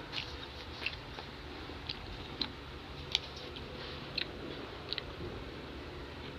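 Close-up chewing and mouth sounds of a person eating pancit canton noodles and kwek-kwek, with scattered wet clicks and smacks at irregular intervals.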